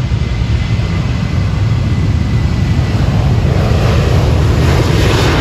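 Jet airliner engines: a steady low rumble that swells into a louder roar over the last couple of seconds as the aircraft comes closer.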